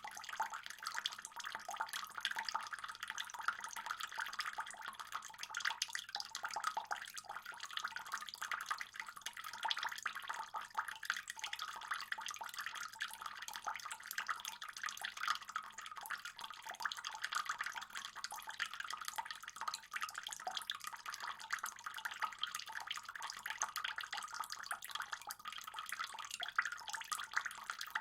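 Water running steadily into a fish pond, a continuous splashing trickle with many small drips and splashes.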